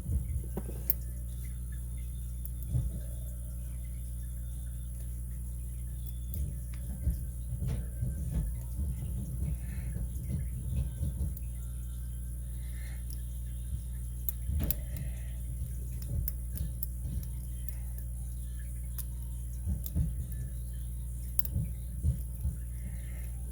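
Small, irregular metallic clicks and ticks of a lock pick and tension wrench working the pin stacks inside a Master Lock 930/950 padlock core, over a steady low hum.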